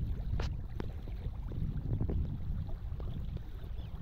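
Wind rumbling on the microphone, with a few faint short clicks.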